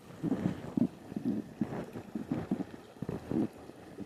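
Footsteps of a person walking up a river, about two uneven steps a second, each a short dull scuff or slosh.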